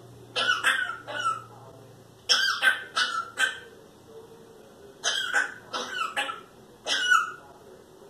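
Pet parrot imitating a human cough: harsh coughs in four bouts of two or three, a second or two apart.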